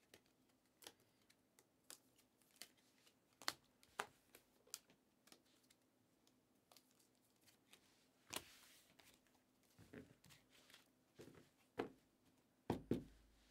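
Trading cards in plastic top-loaders and sleeves being handled and flipped through: faint scattered clicks and plastic rustles, with a longer rustle about eight seconds in and a couple of louder clicks near the end.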